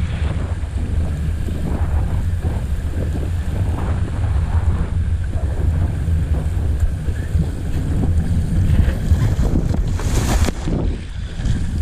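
Wind buffeting a helmet-mounted GoPro's microphone as a steady low rumble, with water slapping and splashing along the hull of a windsurf board under sail. A louder burst of splashing comes about ten seconds in.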